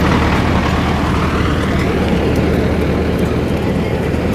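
Engine of a large vehicle or road machine running close by, a steady low drone under general street noise.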